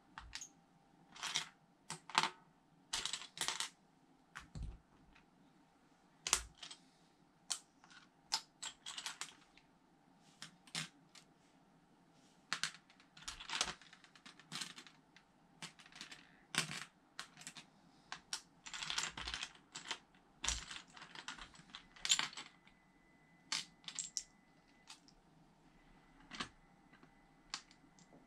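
Plastic LEGO pieces clicking and clattering as hands sort through loose bricks and press them together: irregular short clicks, with a longer stretch of rustling about two-thirds of the way through.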